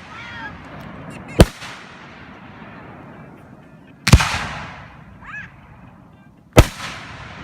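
Aerial firework shells bursting: three sharp booms a couple of seconds apart, the second with a long fading tail.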